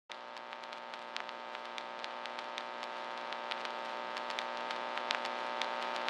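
Background music fading in: a sustained synth drone of several held tones swelling slowly, with scattered crackling clicks over it.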